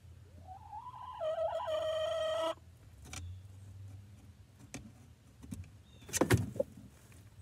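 A hen in the nesting box gives one drawn-out, wavering squawk that rises, holds for about two seconds and breaks off sharply. Small scratches and ticks from the hens shifting in the wood-shaving bedding follow, then a few sharp knocks near the end.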